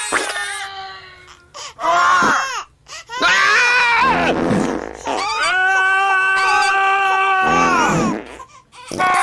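A baby crying in high wails layered with screaming and fart noises: several short rising-and-falling cries, then one long held wail of about three seconds, with low sputtering fart sounds under some of the cries.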